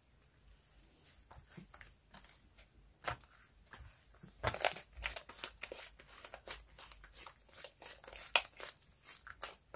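White slime being stretched, folded and squeezed by hand: sticky crackling and small pops. The crackles are sparse at first and come thick and fast from about halfway through.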